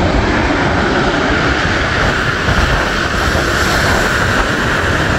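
Wind buffeting the microphone as a low, uneven rumble over a steady rush of sea surf.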